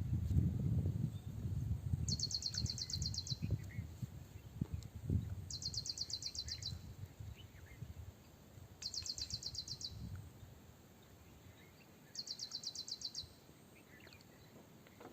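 A high, rapid pulsed trill call, each about a second long, repeated four times at even intervals of roughly three and a half seconds. It sounds over a low rumbling noise that dies away after about ten seconds.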